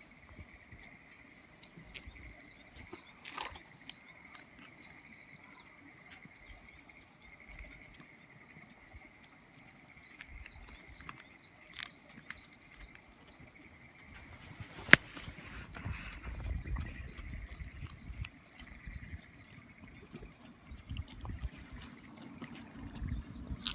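Quiet outdoor ambience with a steady high-pitched drone and faint high chirps, broken by a single sharp click about fifteen seconds in, followed by low rustling and handling noise.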